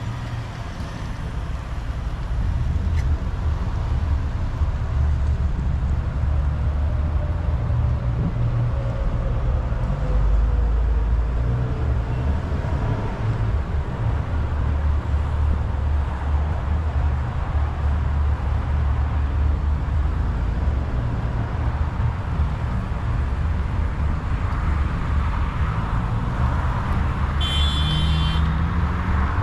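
Car or truck driving, heard from inside the cab: a steady low engine and road rumble that builds as the vehicle pulls away, with a short high-pitched sound near the end.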